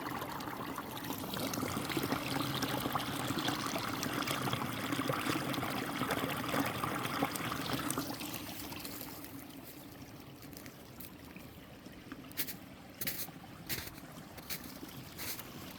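Water trickling steadily, louder for the first eight seconds and then dropping lower, with a few sharp clicks near the end.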